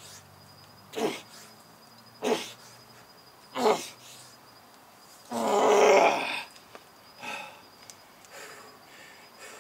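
A man's short straining grunts and breaths with each push-up, about every second and a half, then a longer, louder groan about five seconds in, followed by two weaker grunts.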